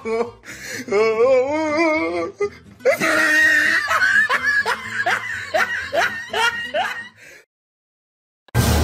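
Laughter in short repeated bursts, with music behind it, breaking off into a brief silence near the end before a loud new sound begins.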